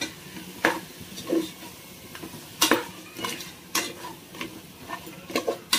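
Perforated metal spatula stirring mutton masala in a pressure cooker pot, scraping and clinking against the metal sides about once a second, over a steady sizzle of frying.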